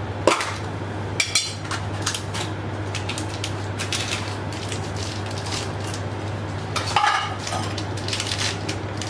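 Steel ladle clinking and tapping against a pan of cooked chickpea paste, in a run of short irregular clicks, over a steady low hum.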